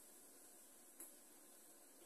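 Near silence: faint room tone with a steady hiss and one small click about a second in.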